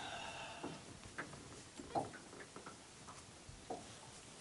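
A few faint, irregular knocks and taps: a freshly landed golden perch flapping in the landing net on the boat's floor while it is handled.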